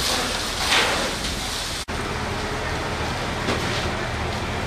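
Steady hiss of fire-hose water spraying onto smouldering timber. It cuts off abruptly about two seconds in, and a similar steady rushing noise with a low hum follows.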